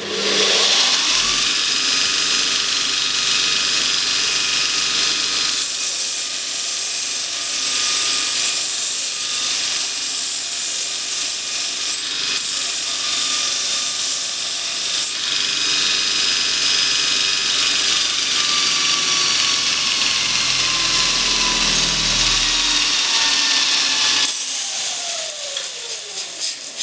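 Bench grinder with a belt-sander attachment spinning up and running, with steel held in pliers pressed against the 80-grit belt for about ten seconds in the middle, giving a loud, harsh hiss of metal on abrasive. Near the end the motor is switched off and its pitch falls as it winds down.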